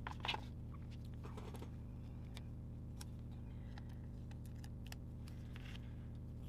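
Faint, scattered ticks and taps of stickers and paper being handled and pressed onto a planner page, over a steady low hum.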